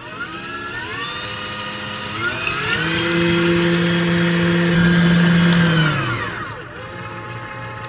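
KitchenAid stand mixer with a wire whisk whipping plant-based cream. The motor whine steps up in speed over the first three seconds, holds high, then drops back to a lower speed about six seconds in, as the cream thickens into whipped cream.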